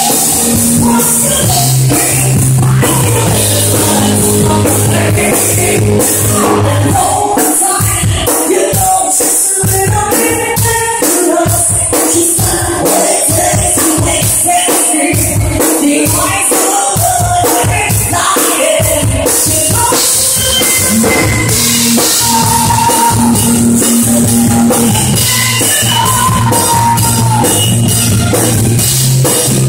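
Live band music with a woman singing into a microphone over drums and bass. In the middle the bass drops back and sharp drum hits stand out.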